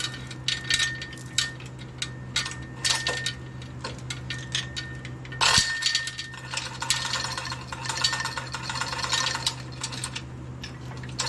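Metal clinking and rattling as the engine's weight is let off the lifting gear onto an engine stand: scattered sharp clinks, then a denser run of rattling about seven to ten seconds in.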